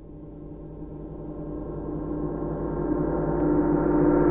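Opening of a music track: a sustained drone of many steady tones, gong-like and shimmering, fading in and growing steadily louder.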